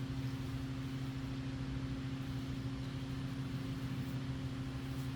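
A steady, low mechanical hum with a constant drone that does not change.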